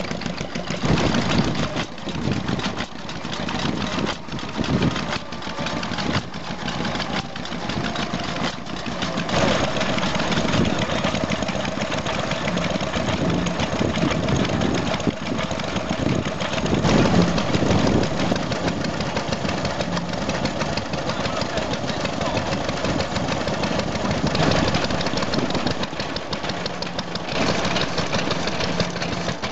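Vintage single-cylinder stationary engines running steadily. A steady whine sounds for several seconds from about nine seconds in.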